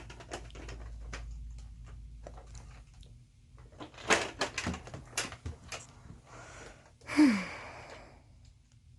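Plastic toys being handled: a scatter of clicks and knocks, thickest in the middle, and one louder short scraping burst with a falling tone about seven seconds in.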